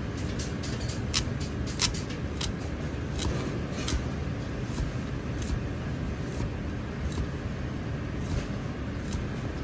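Chinese cleaver slicing through kabocha pumpkin and knocking on a plastic cutting board, a crisp chop roughly one to two times a second at an uneven pace, over a steady low rumble.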